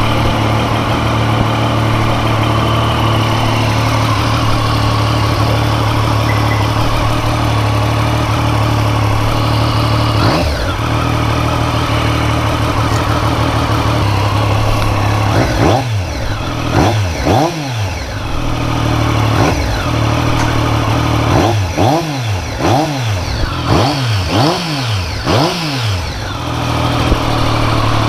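Triumph Street Triple's three-cylinder engine idling steadily, then revved in a series of quick throttle blips, each rising and falling, before settling back to idle. The bike is freshly serviced, and the engine sounds good.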